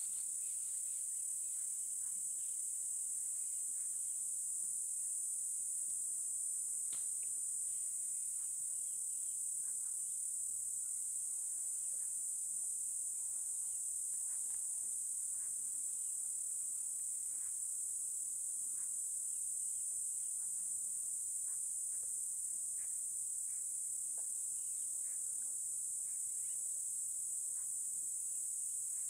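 Steady, high-pitched insect chorus from crickets or cicadas, with faint, scattered short clicks and snaps underneath.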